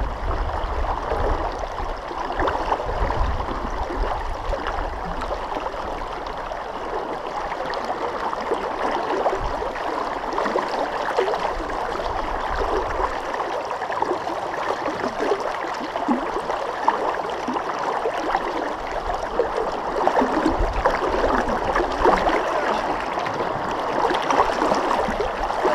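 Muddy river current rushing and gurgling steadily past the side of a pickup truck stuck midstream. A low rumble runs underneath for about the first half.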